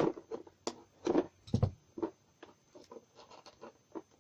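Hands picking and scratching at the sealing tape on a small cardboard box, trying to open it without cutting it: a run of irregular scratches and small clicks, with one duller knock about a second and a half in.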